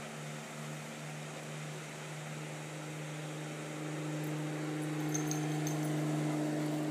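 A steady low mechanical hum, joined about halfway through by a second, higher hum that grows louder.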